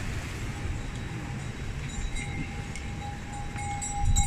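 Wind buffeting the microphone with a low rumble, with a brief louder gust about four seconds in. A thin, steady ringing tone sounds faintly over it and grows stronger in the second half.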